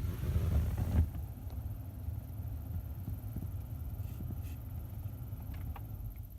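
Chevrolet Cruze cabin blower fan running with a constant rapid chattering and squeaking as it spins, the sign of a fault in the blower fan. There is a louder bump about a second in.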